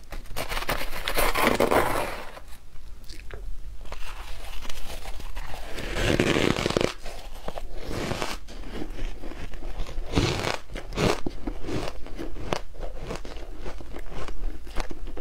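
Close-miked crunching of matcha-dusted ice being eaten: a metal spoon scooping into the frozen blocks and teeth biting and chewing the ice, in loud crunchy bursts about a second in, around six seconds in and around ten seconds in, with smaller crackles between.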